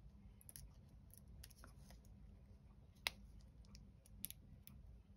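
Near silence with faint, scattered clicks and light rustles from hands handling a small piece of paper, with one sharper click about three seconds in.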